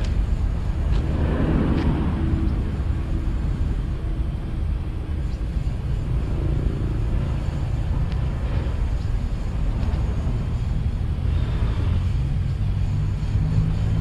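Construction-site ambience: a steady low rumble of engines, with a few faint knocks.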